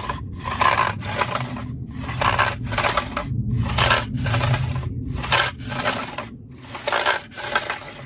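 Recoil pull-start rope on a Mountfield Empress 16 mower being drawn out and let back in about six times, each stroke a short rasp, in pairs about a second and a half apart. The mechanism has just been sprayed with lubricant because it was slipping and would not pull out properly.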